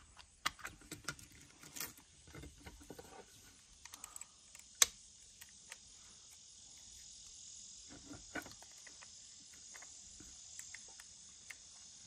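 Light clicks and taps of hands handling a Dremel rotary tool while working the broken flex-shaft inner core out of it, with one sharper click about five seconds in. Crickets chirp steadily in the background.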